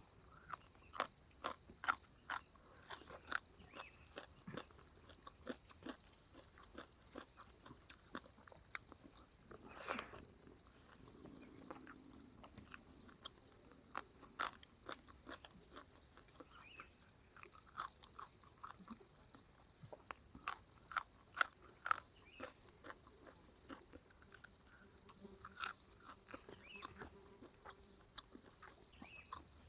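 Close-miked chewing and crunching of food: many sharp, irregular mouth clicks and crunches. Underneath runs a steady high-pitched insect drone.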